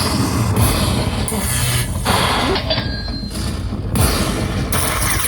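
Lightning Link Wild Chuco slot machine playing its loud bonus-round music and sound effects in blocks that start and stop every second or so.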